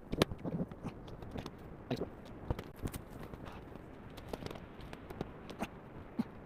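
Scattered light clicks, taps and crunchy scrapes at an irregular pace, over a low background of outdoor noise.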